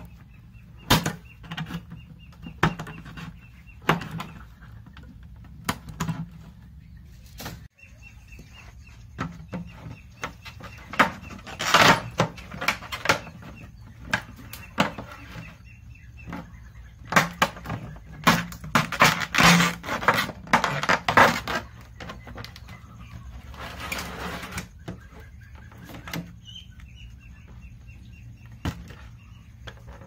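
Thin plastic of a large water jug being cut and handled: scissor snips, crackling and knocking of the plastic, with denser bursts of crinkling in the middle and scattered sharp taps, over a low steady hum.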